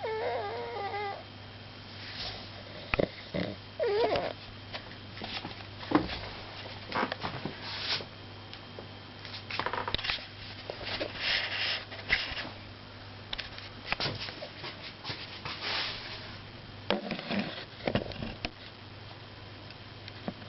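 Snoring and snuffling breaths, coming irregularly every couple of seconds. A brief wavering whine-like call sounds right at the start.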